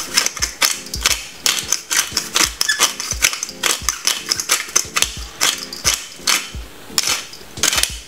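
A pepper mill grinding black pepper: a fast, uneven run of sharp crunchy clicks. Background music with a steady beat plays under it.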